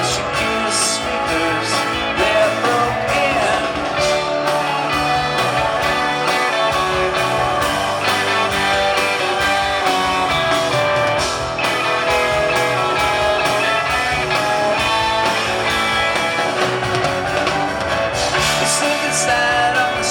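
Rock band playing a song live, with guitars and singing, loud and continuous.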